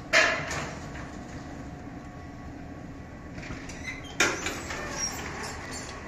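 Inclined elevator cab coming to rest, its low running rumble dying away. Two loud clunks about four seconds apart, each with a short rattle, as the cab stops and its doors slide open.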